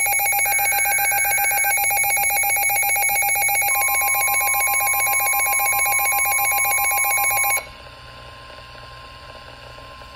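Midland NOAA weather radio alert alarm: a loud, rapidly pulsing electronic tone that cuts off abruptly about seven and a half seconds in. About four seconds in, a steady single-pitched tone joins it and carries on more quietly after the pulsing alarm stops.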